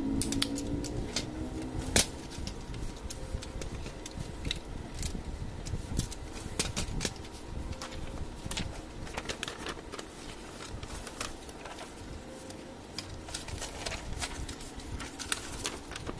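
Scattered clicks and light knocks of an HP LaserJet fuser assembly being handled as its plastic drive gear and metal frame are fitted and set down.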